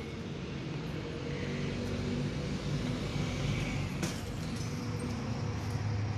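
A motor vehicle's engine running steadily as traffic passes on the road, with a single sharp click about four seconds in.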